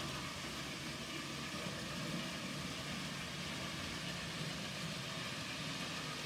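N gauge model train running along the track with a steady running noise.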